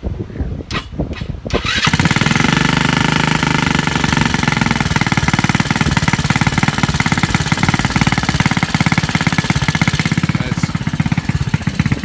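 180cc GY6 single-cylinder four-stroke scooter engine in a Honda Ruckus starting about two seconds in, then running with a fast, even pulsing. It is not running quite right, which the owner puts down to bad, water-contaminated fuel.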